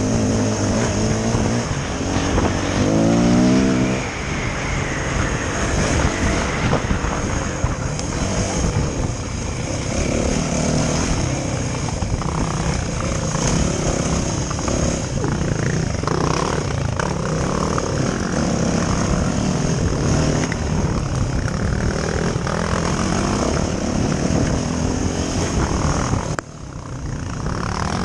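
Yamaha dirt bike engine running hard under the rider, its revs rising and falling as it is ridden along a trail, with a steep rise in pitch about two to four seconds in. Near the end the throttle is briefly shut and the sound drops suddenly before it comes back up.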